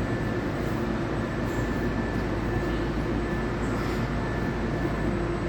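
Steady urban background noise: a low rumble with a constant mechanical hum running under it.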